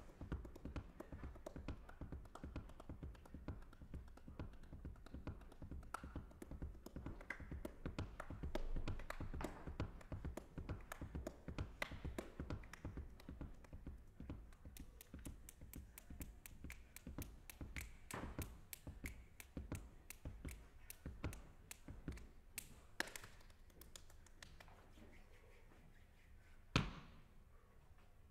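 Quiet hand percussion: a fast, even run of soft taps and clicks from the performer's hands and fingers, with a couple of louder single hits near the end.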